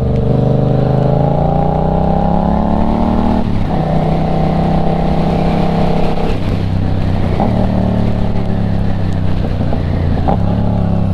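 Motorcycle engine under way, rising in pitch as it accelerates, then dropping sharply at an upshift about three and a half seconds in and running on at a steadier speed.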